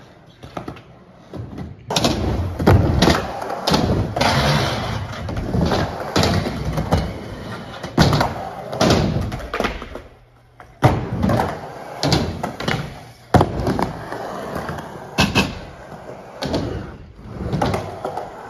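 Skateboarding on concrete: wheels rolling with a steady rumble, broken by many sharp pops, slaps and clacks of the board hitting the floor and obstacles.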